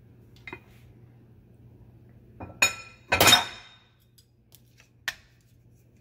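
Glass pot lid taken off a skillet and set down: a few clinks, the loudest clatter about three seconds in, ringing briefly.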